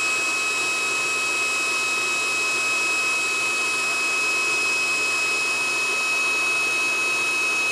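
Handheld induction heater running: a steady fan-like whir with a thin high whine, while its coil heats a steel nut.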